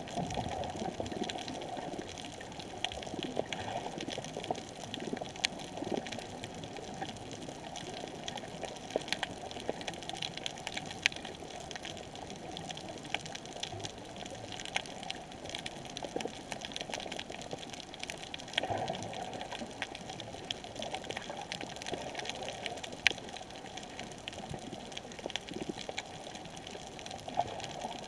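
Underwater reef ambience recorded through a camera's underwater housing: a steady muffled water hiss with frequent sharp clicks and crackles scattered throughout.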